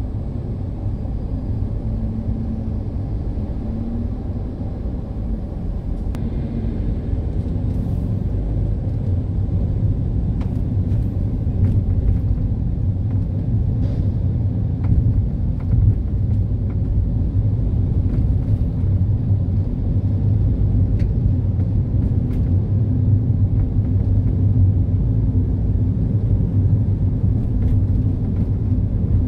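Car driving in city traffic: a steady low rumble of engine and road noise, a little louder from about ten seconds in, with a few faint clicks.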